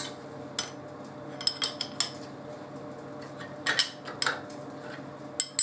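Scattered metallic clinks and ticks of a spanner on the clamp nuts as the step-block clamps holding a vice to a milling machine table are tightened, busiest a little past halfway. A steady low hum runs underneath.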